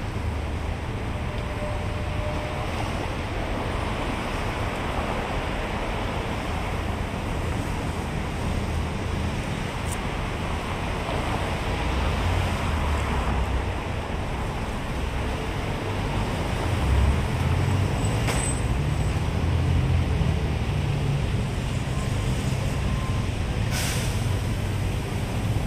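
Road traffic: a steady low rumble and hiss of passing vehicles, swelling louder in the second half, with a few sharp clicks.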